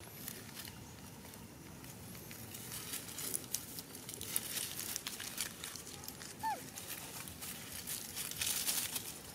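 Dry leaves and twigs crackling and rustling irregularly as macaques move about on the leaf litter, busier in the second half. A single short falling squeak about six and a half seconds in.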